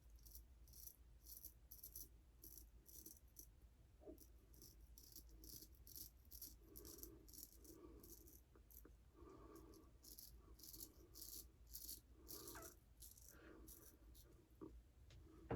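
A 6/8 Damascus straight razor scraping stubble through shaving lather on the face in short, quick strokes, about three a second: the final pass of a straight-razor shave. Faint, dry scratching.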